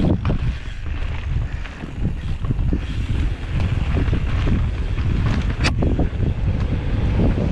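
Wind buffeting a helmet-mounted camera's microphone during a fast mountain-bike descent, over the rumble of tyres rolling on a dusty dirt-and-rock trail and the bike rattling over bumps. A few sharp clicks and knocks come through, the loudest nearly six seconds in.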